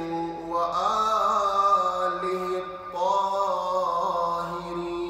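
A man chanting an Arabic supplication (du'a) in long held melodic notes that waver in pitch, with a brief break about three seconds in.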